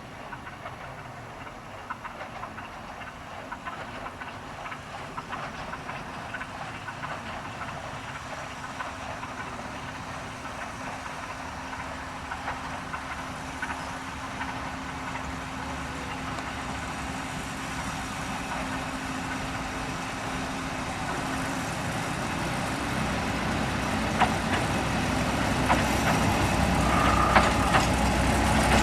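A 15-inch gauge diesel locomotive approaching with its train, its engine and wheels growing steadily louder, with a few sharp clicks from the track near the end.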